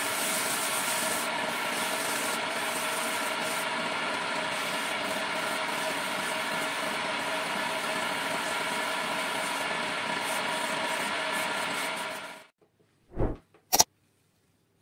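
Homemade wood lathe running steadily, its motor humming, while hand-held sandpaper rubs against the spinning wooden stair baluster. The sound cuts off abruptly about twelve seconds in, followed by two short sounds near the end.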